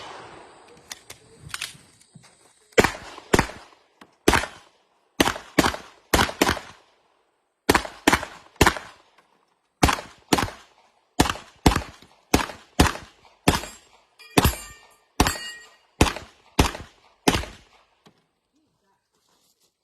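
Gunfire at a shooting-match stage: about two dozen shots fired in quick pairs and strings, with short pauses between them, ending about 17 seconds in. A brief metallic ringing can be heard among the shots a little past the middle.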